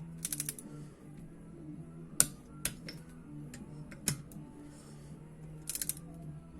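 Click-type torque wrench on small cylinder head bolts: short runs of quick ratchet clicks near the start and near the end, with sharp single clicks between, the loudest about two seconds in, as the wrench breaks over at its 15 N·m setting.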